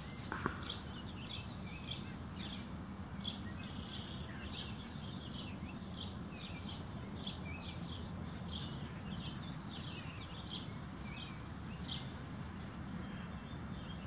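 Small birds chirping and twittering, with short high calls several times a second, over a steady low outdoor rumble.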